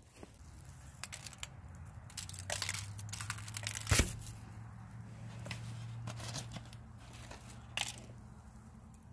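Aluminium foil crinkling and rustling in irregular bursts as it is handled and peeled back, with a single sharp knock about four seconds in.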